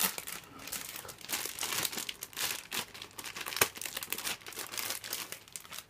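Clear plastic bags crinkling as hands handle plastic model-kit runners and slide them out of their bags. A single sharp click of plastic about halfway through.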